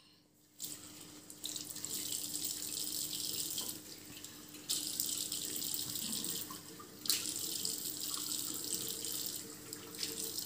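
Water running from a bathroom sink tap and splashing as a child cups it in his hands to wash his face. The flow starts about half a second in and grows louder and softer as his hands move in and out of the stream.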